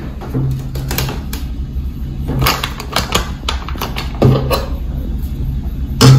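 Metal spoon clicking and scraping against a plastic cup as gram flour is tipped into water and stirred, a string of irregular sharp clicks over a faint low hum.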